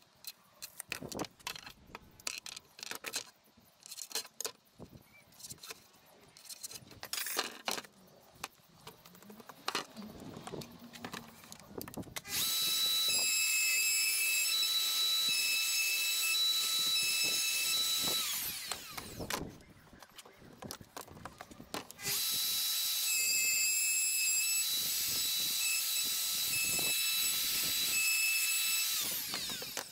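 Scattered knocks and clicks, then a plunge router cutting a laminated worktop through a worktop jig in two runs, each a steady high-pitched whine of about six to seven seconds that winds down in pitch as the motor is switched off.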